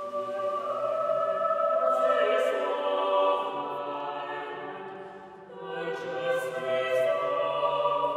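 Mixed choir singing sustained chords in two swelling phrases, dipping briefly about five seconds in, with a few sharp 's' consonants.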